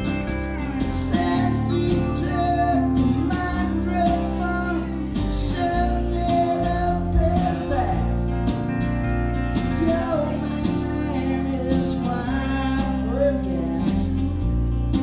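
Live acoustic country-style band: steel guitar sustaining and sliding between notes over strummed acoustic guitars and light hand percussion.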